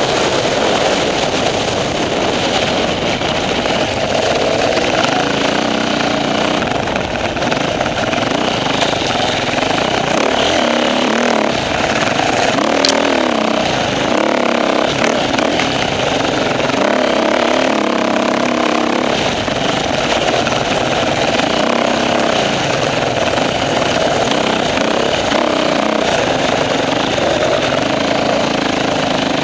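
Dirt bike engine running hard, heard close up from on board, its pitch rising and falling continually as the throttle is opened and closed over rough ground.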